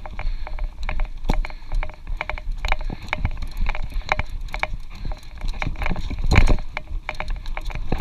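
Mountain bike rattling over a rough dirt singletrack: a rapid, irregular stream of sharp knocks and clatters over a steady low rumble, with one louder jolt about six seconds in.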